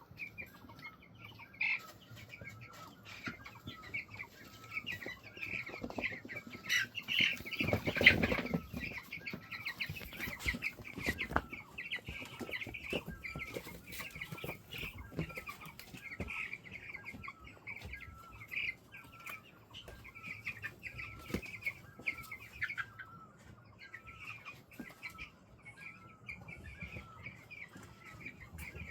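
Flock of chickens calling continually, with many short, repeated high-pitched calls, and a louder burst of noise about eight seconds in.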